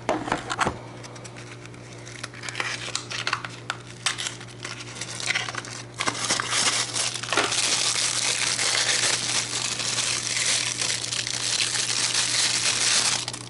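Packaging of a small pocket tripod being unwrapped by hand and crinkling: scattered crackles at first, then from about six seconds in a dense, continuous crinkling that stops abruptly near the end.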